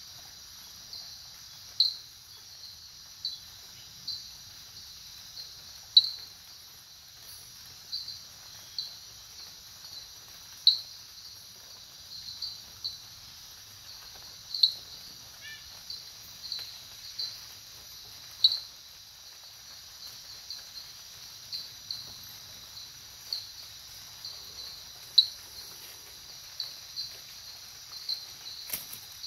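Night insect chorus: a steady high-pitched trilling, with short, louder chirps breaking through every few seconds.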